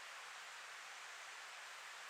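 Faint, steady outdoor rushing noise, an even hiss with no distinct events.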